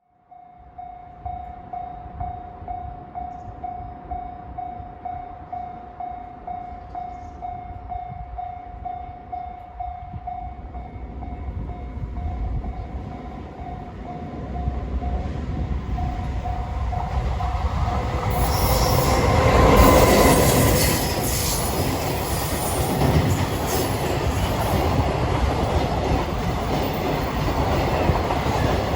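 Level crossing warning bell ringing in a steady, even beat, then an EF510 electric locomotive hauling a freight train approaches and passes, its wheels clattering over the rail joints. The train noise builds from about halfway through, is loudest about two-thirds of the way in, and is still rolling by at the end.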